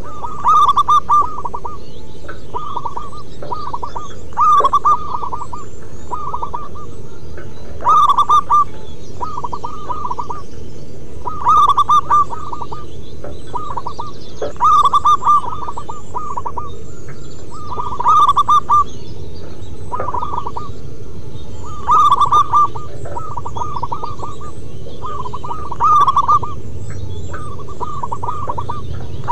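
Several zebra doves cooing, their rapid rolling coo phrases overlapping, with a louder phrase about every three to four seconds over steady background noise.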